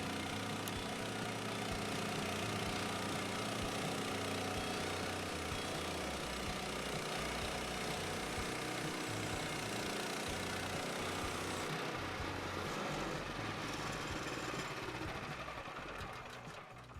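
Portable band sawmill's engine running steadily, fading away over the last couple of seconds.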